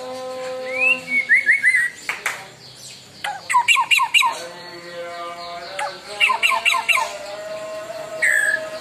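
White-rumped shama (murai batu) in full song, firing off harsh, rapid bursts of short repeated notes, four to six notes to a burst, three times over with a single call near the end. A steady hum runs underneath.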